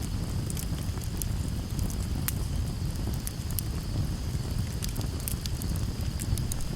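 Wood fire crackling, with frequent sharp irregular pops and snaps over a low steady rumble.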